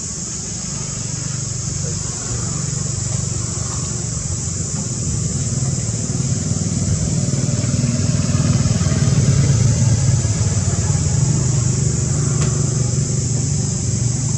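A motor vehicle engine running, getting louder toward the middle and easing a little near the end, over a steady high-pitched hiss.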